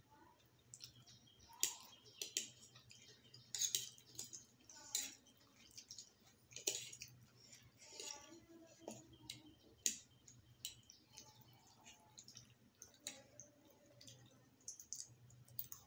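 Eating sounds: metal forks tapping and scraping on disposable plates of hakka noodles, with irregular, quiet clicks a few times a second and soft mouth sounds of the noodles being eaten.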